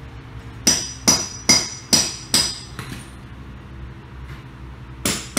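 Hammer blows ringing on metal: six sharp strikes at about two and a half a second, a pause, then two more near the end, over a low steady hum.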